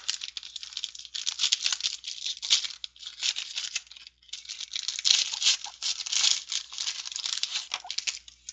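Foil wrapper of a trading-card pack being torn open and crinkled by hand: a dense run of crackles with a brief pause about four seconds in.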